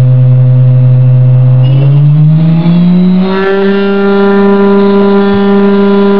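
HSD ES 721 M electrospindle running on a post-repair test, with a steady motor whine. From about two seconds in the whine rises in pitch as the spindle is sped up, then holds steady at a higher pitch near 12,000 rpm.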